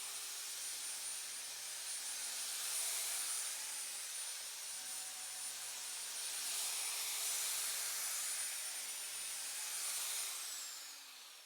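A high-speed electric motor, such as a woodworking power tool, running steadily with a hiss and a high whine. It is switched off about ten seconds in, and the whine falls in pitch as it winds down.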